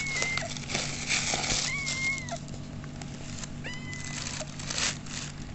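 Kitten mewing three times, short high steady calls each under a second long, with rustling of a plastic bag and cardboard box being handled between them.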